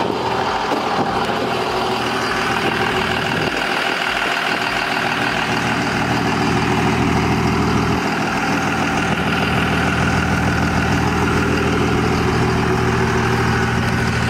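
Pickup truck engine idling steadily with a loaded utility trailer hitched behind.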